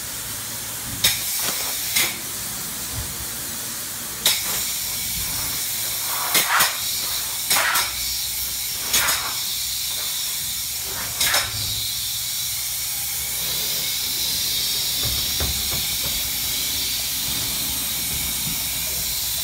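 Spray foam gun hissing as open-cell foam insulation is sprayed: a steady high-pitched air hiss, broken by several short, louder bursts of spray in the first twelve seconds.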